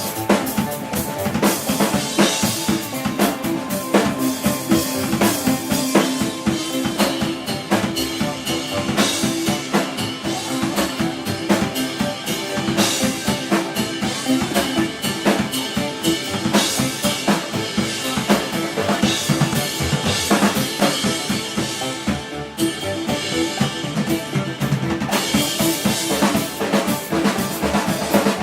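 A rock band playing live, with a busy drum kit hitting fast and steady under sustained guitar and bass.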